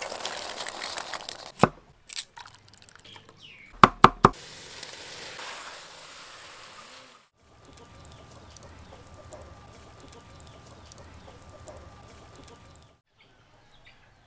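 Water pouring and splashing off a colander of boiled quail eggs lifted from a steaming pot, with a few sharp clacks, three of them close together about four seconds in. Later, a faint crackling wood fire with a thin steady tone under it.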